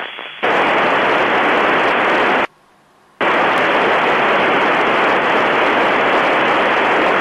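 Loud, even hiss of an Icom IC-746PRO amateur radio's FM receiver with no signal coming in, cut short by under a second of near silence about two and a half seconds in.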